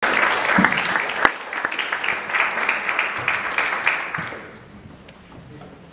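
Concert audience applauding, the clapping thinning out and dying away about four and a half seconds in.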